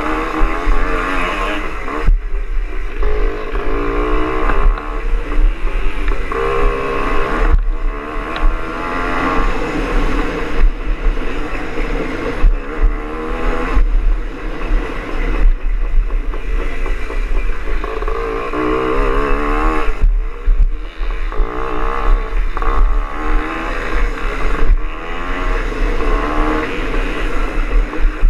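Greeves Hawkstone two-stroke scrambles motorcycle running hard on a grass track, its revs rising and falling again and again as the rider opens and shuts the throttle, with a steady low rumble underneath.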